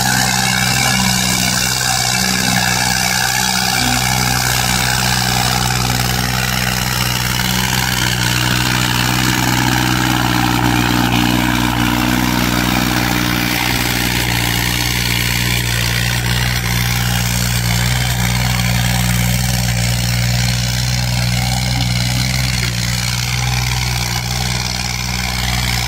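Diesel tractor engine running at a steady pitch under load while pulling a tillage implement, with a constant rushing hiss over it.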